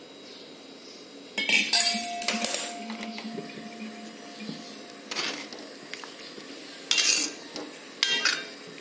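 Stainless-steel spoon and ladle clinking and scraping against a hammered metal kadhai while stirring simmering usal: about five sharp metallic clinks, the first leaving a ringing note for a few seconds.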